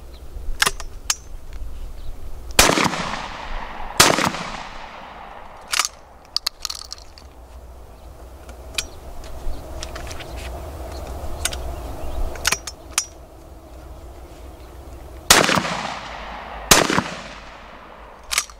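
Two pairs of 12 gauge shotgun shots from a side-by-side Darne-type sliding-breech double, fired about a second and a half apart, each with a rolling echo. Between the pairs come sharp metal clicks as the breech block is slid back, the spent shells are extracted, fresh shells are loaded and the breech is closed.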